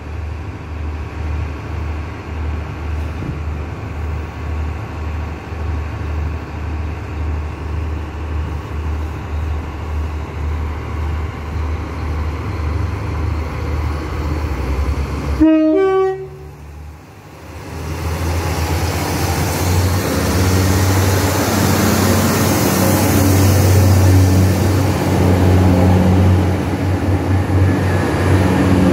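Diesel multiple unit's underfloor engines idling with a steady low throb. About halfway through, a short sharp sound and a brief dip, then the train's diesel engines and wheels run much louder as it passes close by.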